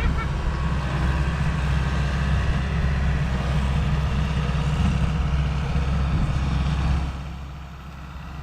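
A machine engine runs steadily with a low, even drone, then drops in level about seven seconds in.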